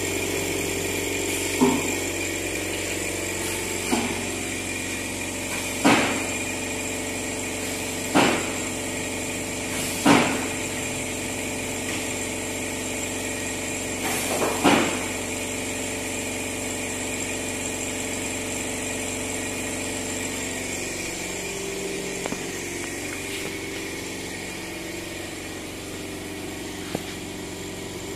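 Single-spindle CNC wood router running, its spindle giving a steady high whine. Six sharp clunks come at roughly two-second intervals in the first fifteen seconds, and after about twenty seconds the lower machine hum changes.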